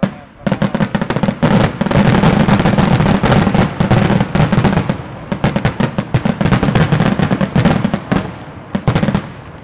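Rapid barrage of aerial firework shells bursting, with loud bangs following one another almost without pause over continuous crackling, thinning out near the end.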